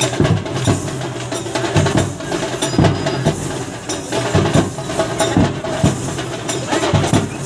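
Music with drums beating, the low beats coming at uneven intervals over a dense background of noise.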